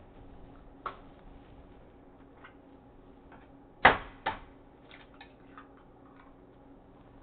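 Two sharp knocks close together about four seconds in, the first the loudest, with a smaller knock about a second in and faint scattered clicks over a low steady hum.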